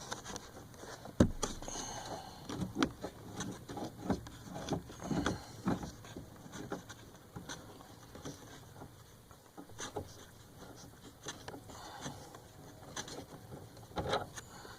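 Hand-handling noises: scattered plastic clicks, knocks and rustles as a black plastic twist-off retainer is unscrewed from behind the tail light trim panel. The sharpest click comes about a second in.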